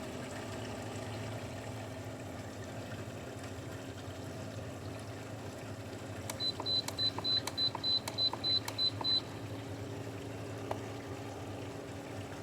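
LG 6,000 BTU window air conditioner's fan running with a steady hum. About six seconds in, its control panel gives a quick run of about ten short, high beeps as its buttons are pressed.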